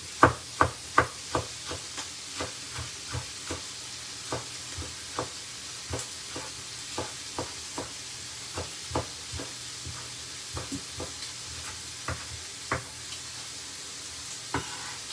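Kitchen knife chopping spring onion and onion on a wooden chopping board: a run of sharp taps, about two to three a second, loudest in the first couple of seconds. Under it, sirloin steaks sizzle steadily in a frying pan.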